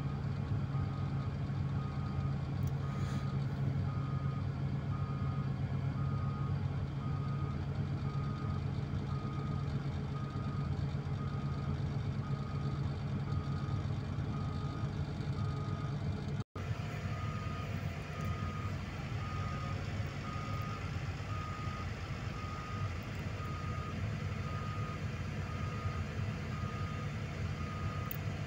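Caterpillar D7R bulldozer's diesel engine running steadily while it reverses, its backup alarm sounding steady, evenly spaced beeps at one pitch. The sound cuts out for an instant just past the middle, then the beeping carries on over a lighter engine note.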